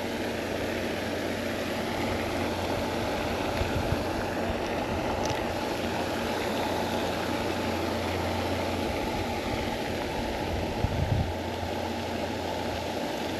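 A steady rushing noise with a low hum underneath.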